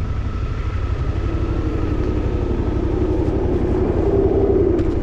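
Suzuki motorcycle engine running on the move, its note climbing slightly and then falling away near the end, over heavy wind rumble on the microphone.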